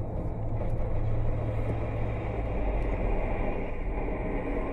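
Steady road and engine noise inside a moving car: a low hum and tyre rumble that drops lower about halfway through as the car slows. A few faint ticks sound in the cabin.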